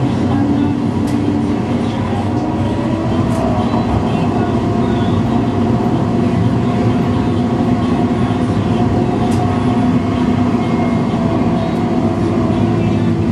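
Tram running along street track, heard from the front cab: steady rolling of steel wheels on the rails under a hum from the traction motors whose tones shift slightly in pitch, with a few faint clicks.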